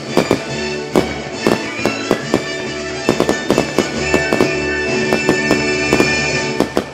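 Music with many sustained tones, overlaid by fireworks bangs and crackles going off at irregular intervals.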